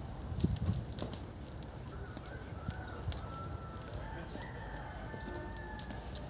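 A rooster crowing, its call starting about two seconds in, over the crackle and snap of a burning straw fire.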